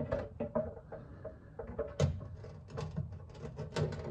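Irregular clunks and light knocks of a loosened oil pan being wiggled and worked down from under the engine, metal knocking against metal. The pan is hung up, caught on the oil pickup. The two loudest knocks come about two seconds in and near the end.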